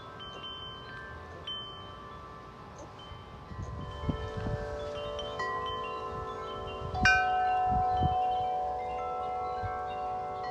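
Large tubular wind chimes ringing in the wind, many long overlapping tones that hang on. They get busier about halfway through, with a louder strike about 7 seconds in, and gusts rumble on the microphone.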